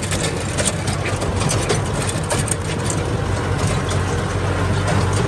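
Kubota tractor's diesel engine running steadily under load, a constant low drone, while its rear rotary tiller churns dry soil with a rough, irregular clatter over the top.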